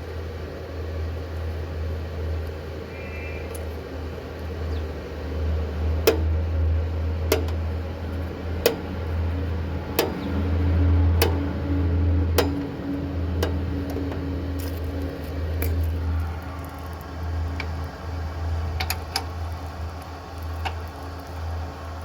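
Steady low machine hum, with a run of sharp clicks about every second and a quarter through the middle and fainter scattered ticks near the end.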